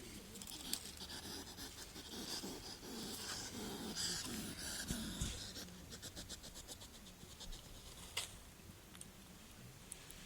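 Hedgehog sniffing and snuffling in quick short puffs of breath, with faint scratching. The puffs are busiest in the first half and thin out later, with one sharper click near the end.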